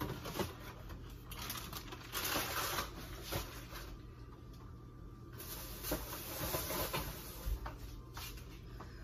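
Kitchen handling sounds: rustling and light knocks, with two stretches of hiss, about a second in and again past the middle.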